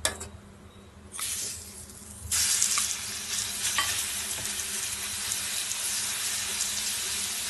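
Ginger-garlic paste sizzling as it hits hot oil with mustard and cumin seeds in a kadai, and stirred in with a spoon. The sizzle starts about a second in, grows louder a second later, then holds steady.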